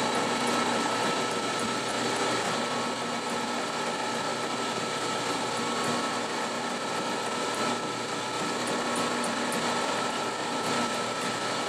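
Pullmax-type reciprocating sheet-metal machine running steadily while aluminium sheet is worked under its tool.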